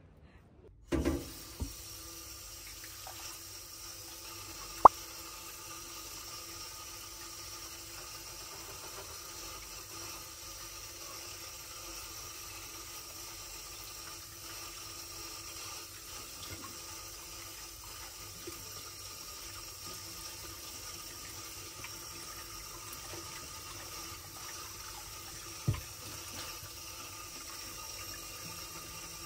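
Water running steadily from a kitchen tap into a sink, with a few sharp knocks, the loudest about five seconds in.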